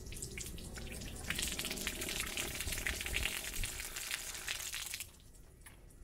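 Rinse water gushing out of the RV water heater's open drain hole and splashing onto the pavement as the tank is flushed of its vinegar descaling solution. It swells about a second in and cuts off sharply about five seconds in.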